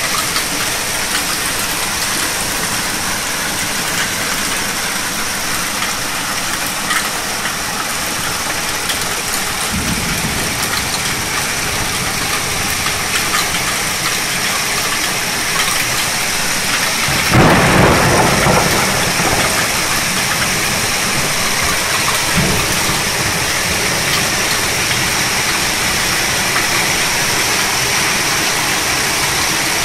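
Torrential rain in a thunderstorm: a steady hiss of rain pouring down, with thunder rumbling about ten seconds in and a louder peal a little past halfway that fades over a couple of seconds.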